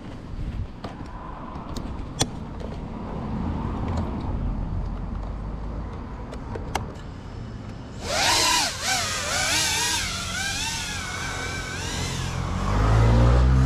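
Scattered clicks and a low rumble of handling, then a loud wavering whine with bending pitch from about eight to twelve seconds in. Near the end, a small FPV quadcopter's motors spin up and settle into a steady hum.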